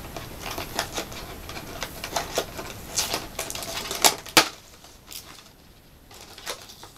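Plastic blister packaging and its card backing being pulled and pried open by hand: a run of crinkles and sharp clicks, with two loud cracks close together about four seconds in, then quieter handling.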